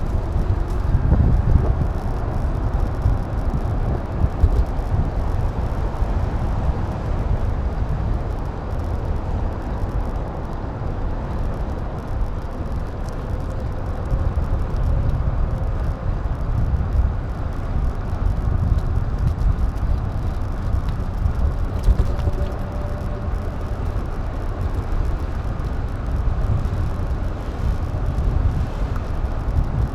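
Steady low wind buffeting and rolling road noise picked up by an action camera's microphone while riding, with no rattle from the camera case. A faint short tone and a light click come about two-thirds of the way through.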